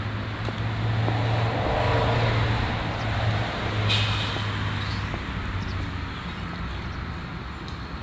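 Road traffic: a motor vehicle's engine hum and road noise swelling and then fading over several seconds. A brief high-pitched sound comes about four seconds in.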